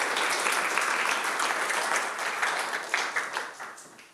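Audience applauding at the end of a lecture, the clapping thinning out and dying away over the last second or so.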